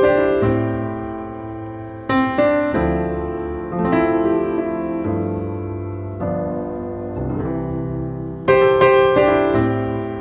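Background piano music: chords struck every second or two, each ringing out and fading before the next.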